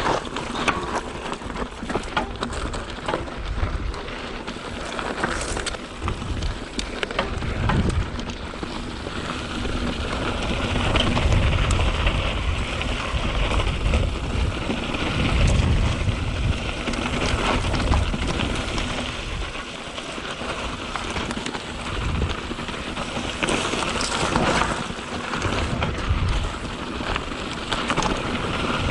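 Mountain bike (a 2021 Canyon Spectral 7) rolling along a loose dirt trail: tyres crackling over dirt, gravel and leaves, with the frame and chain rattling in a dense stream of small clicks. Low rumbles of wind on the microphone come and go.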